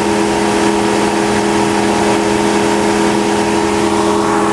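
Ford 2.7-litre EcoBoost twin-turbo V6 idling steadily, heard under the open hood as an even hum with a few fixed tones.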